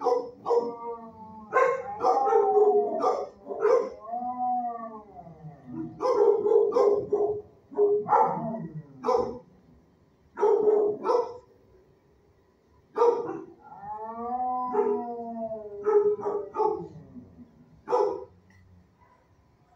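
Dogs barking in shelter kennels, with a drawn-out howl about four seconds in and another around fourteen seconds in.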